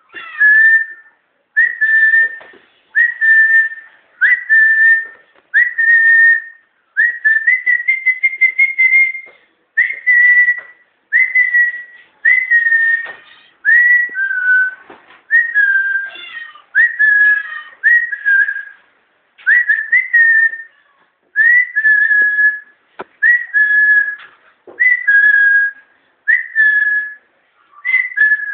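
A high whistled note repeated over and over, about one every second and a half, each opening with a quick upward slide and then held or sagging slightly, with faint handling knocks between the notes.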